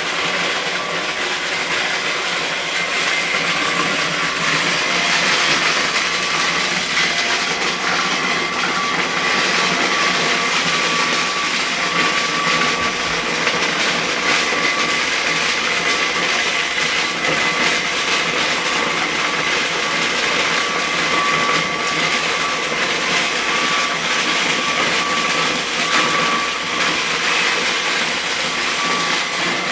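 Motorised corn sheller running steadily, with a high steady whine over a dense continuous rattle.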